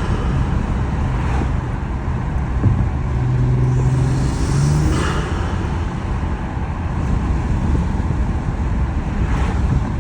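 Acura TLX Type S's turbocharged V6 running while the car is driven on the road, a steady low engine drone over road rumble, fitted with an HPS cold air intake. A few brief swells of higher noise come and go.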